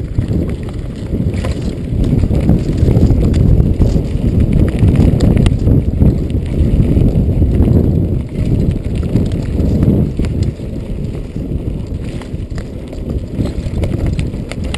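Norco Storm hardtail mountain bike riding down a rough, dry dirt singletrack. A loud, constant low rumble runs under frequent small knocks and rattles from the bike going over the bumps.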